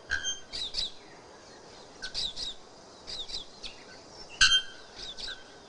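Bare-throated bellbird (ferreiro) calling: clusters of short, sharp, ringing notes mixed with quick chirps, the loudest strike about four and a half seconds in.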